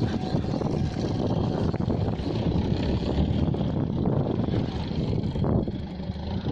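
Steady low rumble of a fishing boat at sea, with wind buffeting the microphone.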